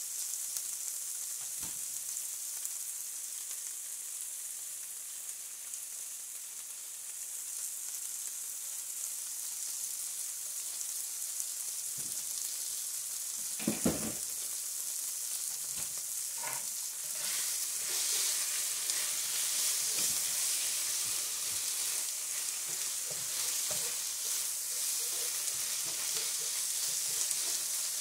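Strips of carrot, onion and green pepper sizzling as they stir-fry in a nonstick skillet for japchae, the sizzle growing louder in the second half. A couple of sharp knocks come about halfway through, and a spatula stirs and scrapes the vegetables near the end.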